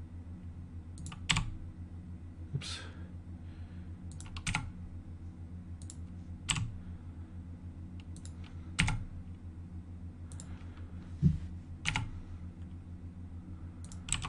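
Computer keyboard keys and mouse buttons clicking, about a dozen single, irregularly spaced clicks as Blender hotkeys and mouse clicks are entered, over a steady low hum.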